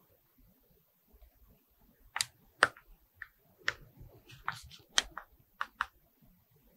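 A quiet run of about nine light, sharp clicks and taps from handling the Zyxel NR2101 portable 5G router, starting about two seconds in.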